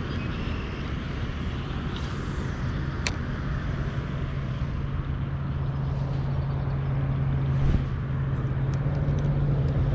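A motor boat's engine running with a steady low hum that grows gradually louder, over a rushing wash of wind and water; a short sharp click about three seconds in.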